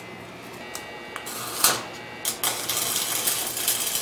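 Electric arc welding: the arc sputters in a few short bursts, then from about halfway through crackles steadily and louder as a weld is laid on the steel sculpture.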